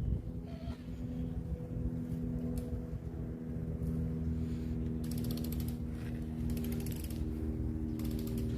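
Ratchet wrench clicking in three short runs over a steady low hum.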